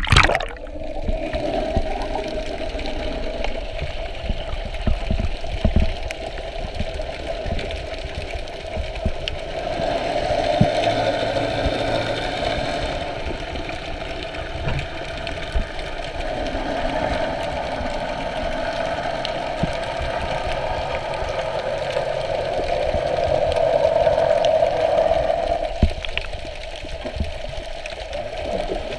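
A boat motor droning, heard underwater, swelling and fading over several seconds. At the very start there is a short burst of splashing as the camera goes under the surface.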